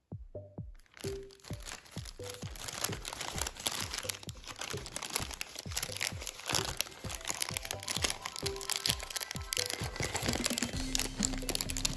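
Origami paper crinkling and crackling in many quick, irregular bursts as it is folded and creased, over background music with short pitched notes.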